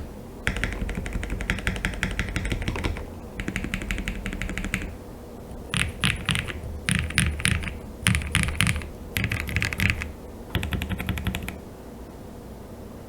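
Mechanical keyboard with lubed Wuque Studio Aurora Clear linear switches on a polycarbonate plate with plate and case foam, being typed on in bursts: two runs of fast typing, then five shorter clusters of heavier keypresses with a deeper thud. The switches sound fairly muted and deep. The typing stops about a second and a half before the end.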